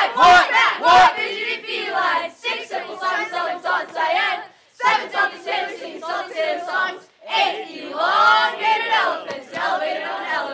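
A group of people chanting and singing together in loud, overlapping voices, with two short pauses between phrases.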